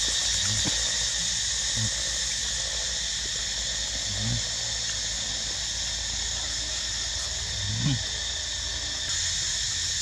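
Steady high-pitched drone of a forest insect chorus, with a few short low rising sounds about half a second, four seconds and eight seconds in.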